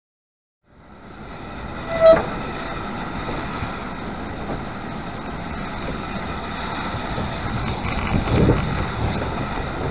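GWR King-class four-cylinder 4-6-0 steam locomotive 6023 'King Edward II' moving slowly off shed, heard from the fireman's side of the cab: a steady hiss and running noise that fades in just under a second in and slowly grows louder. A brief sharp ringing sound stands out about two seconds in.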